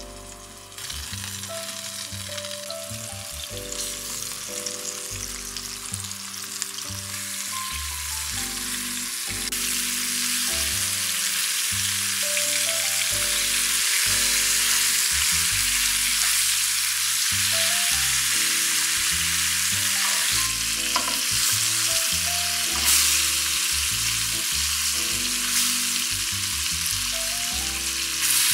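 Food frying in oil in a pan, a steady sizzle that grows louder about ten seconds in, over soft background music.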